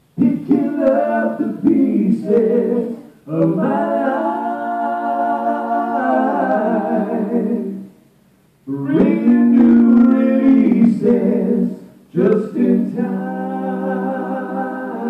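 Two men singing a gospel song together into microphones, in long held phrases that break off briefly about three, eight and twelve seconds in.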